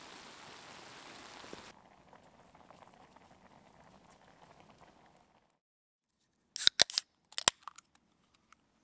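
A camp stove's burner flame hissing steadily, cutting off about two seconds in, then a faint simmer of sauce in a pan. Near the end, beer cans are cracked open: a quick cluster of loud, sharp snaps from the pull tabs.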